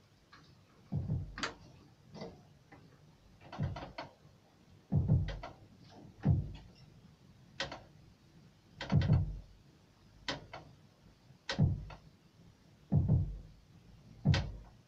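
Sparse drum beat: a low kick and a sharp, clap-like hit recurring about every one and a third seconds, with lighter ticks in between.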